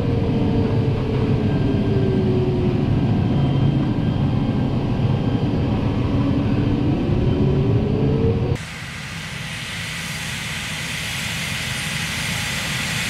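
Fendt 720 Vario tractor heard from inside the cab while drilling: a steady low engine drone with a whine that slides down in pitch and climbs back up. About two thirds of the way in the sound cuts to outside, where the tractor and Väderstad Tempo planter make an even rushing hiss that grows slowly louder as they approach.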